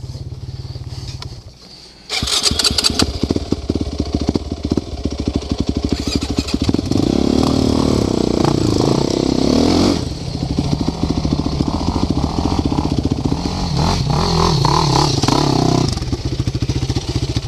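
Sport ATV engine that falls quiet briefly, then starts again about two seconds in with a sudden loud burst and runs on, rapid firing with the throttle blipped and held higher for a few seconds midway. It drops back to a lower idle near the end.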